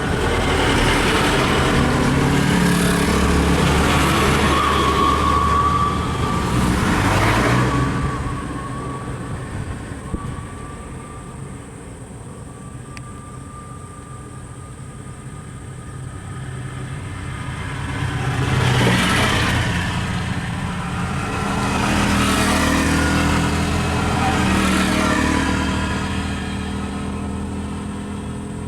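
Motor vehicle engine running and revving, in two loud spells that swell and fade, with a quieter stretch between them.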